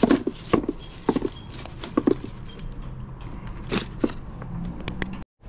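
Handling noise from tools and odds and ends being picked up and set down over a cardboard box: a string of separate knocks and clatters, a hammer among the items. The sound cuts out abruptly near the end.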